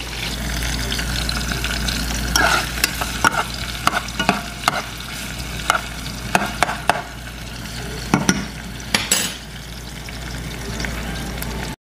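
Sliced onion and green bell pepper frying in oil in a small saucepan, sizzling steadily, while a metal spoon stirs them and clicks and scrapes against the pan many times.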